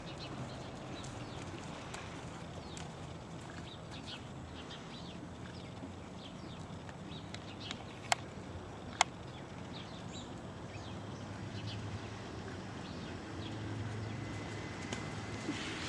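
Small birds chirping on and off over a steady low rumble, with two sharp clicks about a second apart halfway through.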